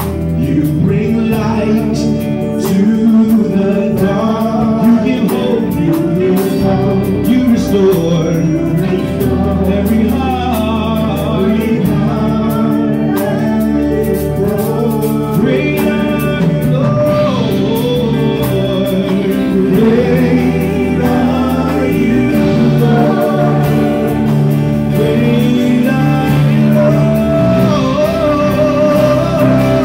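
Gospel worship song performed live: a man sings lead over a Yamaha Motif XS8 keyboard, with guitar.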